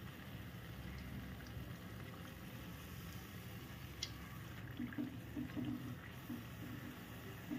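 Rice-flour and palm-jaggery batter deep-frying in hot coconut oil, the oil bubbling and sizzling steadily, with a single light tick about four seconds in.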